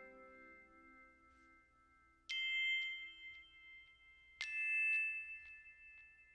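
Background music of slow, bell-like struck notes. The tail of an earlier note fades out at first, then two new notes sound about two seconds apart, and each rings on and fades.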